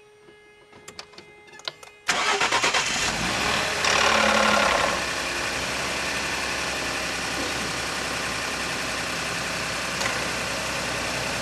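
Ford F-150 3.5 EcoBoost twin-turbo V6 cold-starting: a few faint clicks, then it catches suddenly about two seconds in with a rattle, runs louder for a moment around four seconds and settles to a steady idle. The start-up rattle is the noise that persists after the stretched-timing-chain TSB repair, which the owner takes for internal engine damage.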